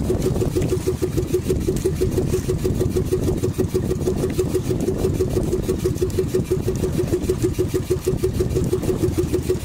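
Outrigger fishing boat's engine running steadily, with a fast, even beat of about eight pulses a second over a low rumble.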